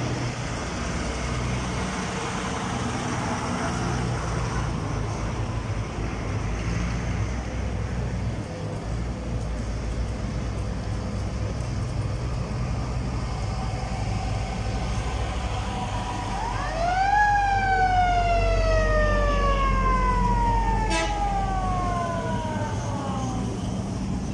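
Old cars' engines running with a steady low rumble as they pass. About sixteen seconds in, a siren spins up quickly to a high wail, then winds down slowly over about six seconds, falling in pitch the whole way.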